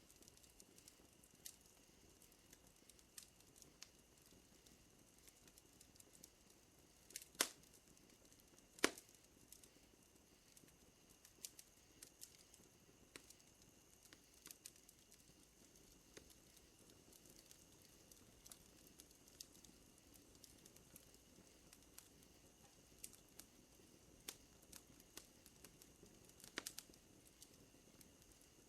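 Wood fire crackling quietly, with scattered small snaps and a few louder pops about seven and nine seconds in and again near the end. A faint steady high-pitched tone runs underneath.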